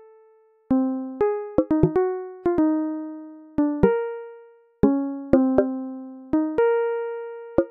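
Background music: a slow keyboard melody of single struck notes, each ringing and fading, starting after a brief gap.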